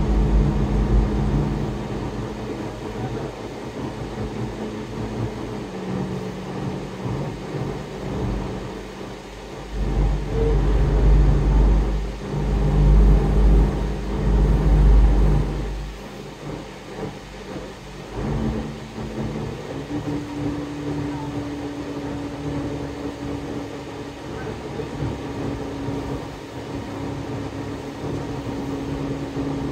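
Interior drone of a moving GO Transit bus: engine and road noise with a steady engine hum whose pitch steps up twice about two-thirds of the way through. A heavier deep rumble swells for several seconds about a third of the way in.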